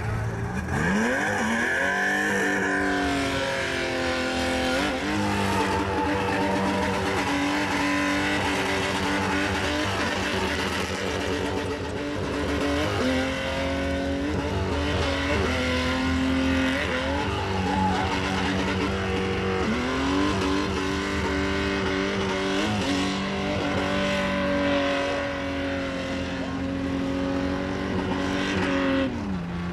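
SUV engine held at high revs while drifting, with tyres squealing against the asphalt. The revs climb at the start, dip and pick up again several times, and drop near the end.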